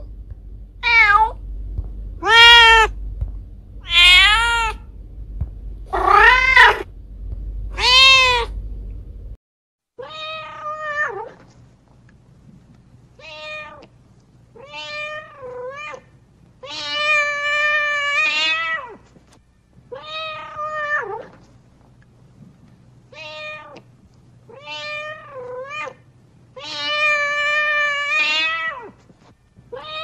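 A cat meowing over and over, the calling meows a mother cat uses to summon her kittens. The first few are loud, about one every second and a half over a low hum. About a third of the way in the sound cuts to a quieter take, where the meows come more spaced out, two of them long and drawn out.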